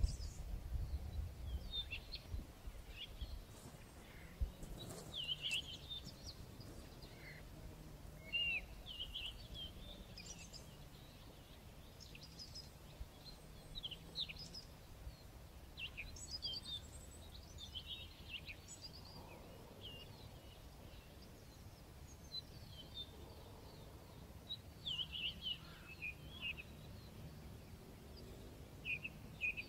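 Small songbirds chirping and calling, many short high calls scattered throughout over a faint steady outdoor background, with a low rumble in the first few seconds.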